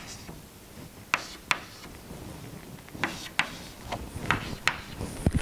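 Chalk on a blackboard: a string of short, sharp taps and scratchy strokes as lines are drawn, some spaced about a second apart and some close together.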